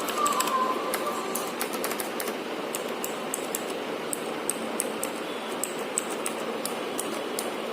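Keys being pressed on a Zebronics Zeb-Max Pro mechanical gaming keyboard: a run of irregular key clicks, several a second, over a steady background noise.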